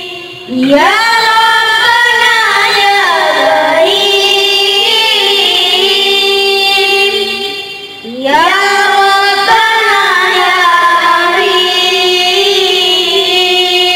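A group of young boys singing an Islamic devotional chant together into microphones, amplified through a PA loudspeaker. Two long melodic phrases, each opening with a rising sweep and then held with ornamented turns, with a brief breath pause about eight seconds in.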